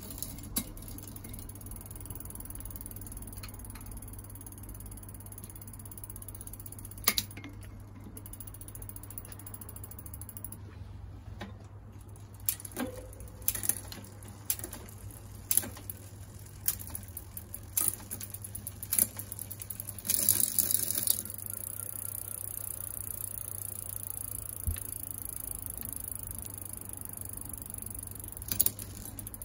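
A 2000 Scott Boulder mountain bike's drivetrain turning on a stand: the chain runs over the chainring and rear cassette with a steady whir, and the rear hub ratchets. Scattered sharp clicks come as the chain moves across the sprockets, with a brief louder rattle about two-thirds of the way through.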